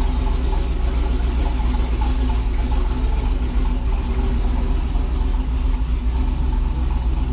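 Twin-turbo LS V8 in a square-body Chevy C10 truck running steadily at idle, with a heavy low rumble and an even pitch throughout.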